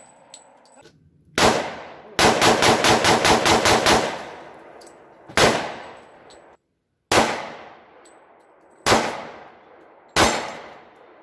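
Glock 27 .40 S&W compact pistol firing: one shot, then a rapid string of about a dozen shots in under two seconds, then four single shots a second and a half to two seconds apart, each with a short echoing tail.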